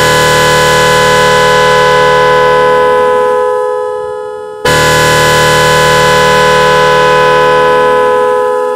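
Magic 18-sound digital horn powered straight from a 12 V battery, giving two long, loud blasts of the same steady electronic tone. The second blast starts abruptly about four and a half seconds in, and each one tails off slightly toward its end. The horn is sounding on its first power-up after wiring.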